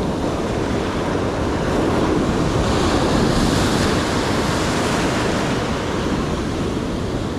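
Ocean surf breaking and washing up the beach, a steady rush that swells louder a couple of seconds in and then eases off.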